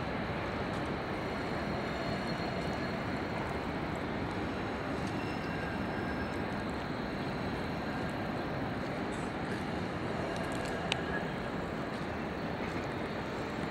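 Steady, even background noise of a railway station platform under a glass roof, with no train passing in view, and a single sharp click near the end.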